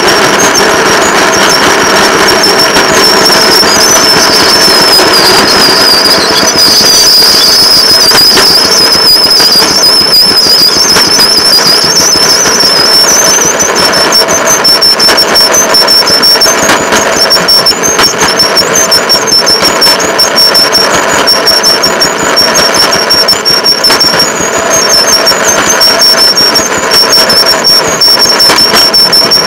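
Rail motorcar running along the track: its engine runs steadily under the wheel and rail noise. A thin high whine wavers in pitch through the first half, then comes and goes in short, even pulses.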